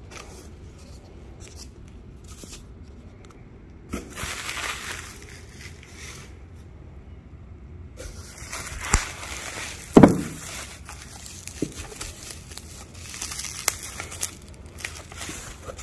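Bubble wrap crinkling and crackling as it is handled and pulled off a sheathed knife in a cardboard box. It starts faint, with a short burst of rustling about four seconds in, then runs on steadily with sharp crackles from about eight seconds, and a single dull thump comes about two-thirds of the way through.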